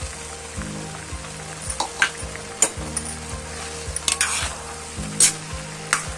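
Grated carrots sizzling in a steel kadhai over a high gas flame as they are stirred while their water cooks off, with several sharp scrapes of the spoon against the pan.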